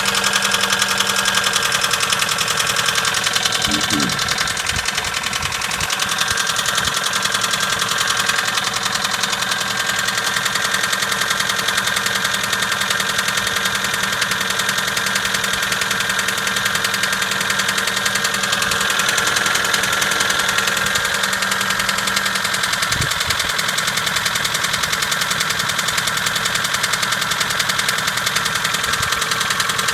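Mitsubishi 4G94 2.0-litre inline-four engine idling cold with a steady, rhythmic knock that shows while the engine is cold.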